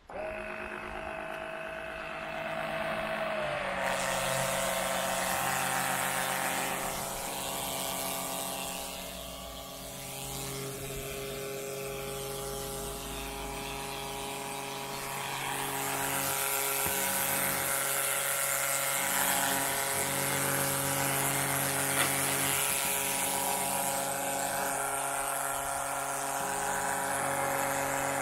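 Small 12 V electric oil extractor pump switched on and running with a steady motor whine. About three and a half seconds in, the whine drops slightly in pitch and a hiss joins it as the pump begins drawing the engine oil out through the dipstick tube.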